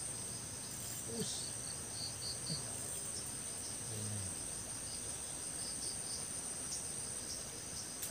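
Steady high-pitched insect chorus of crickets trilling, with a few faint pulsed chirps beneath it and a couple of soft low knocks.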